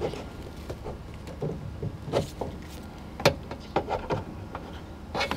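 Plastic trim stick prying at a car door's outer belt molding: scattered sharp clicks and light scraping of plastic on the molding and door edge, the stick finding nothing to catch on.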